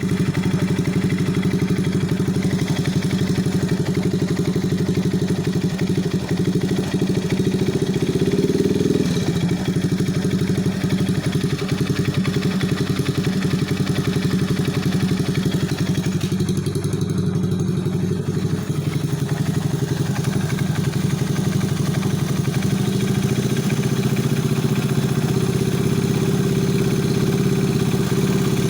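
Alpha 110 moped's single-cylinder four-stroke engine running steadily with a knock, the pitch rising briefly about eight seconds in.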